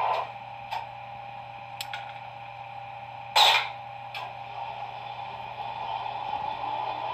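Sound decoder of a PIKO H0 model of a DB class 140 electric locomotive playing its engine sound at standstill: a steady hum with a few clicks and one short, loud hiss about three and a half seconds in, then the sound slowly builds again near the end.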